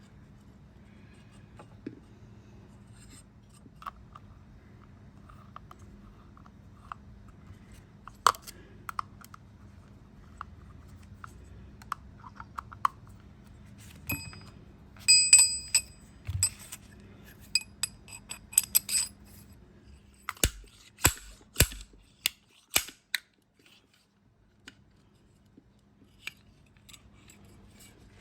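Small metal tools and parts being handled while a motorcycle radiator fan is taken apart: scattered clicks and clinks, with a few ringing metallic taps near the middle, over a faint steady hum.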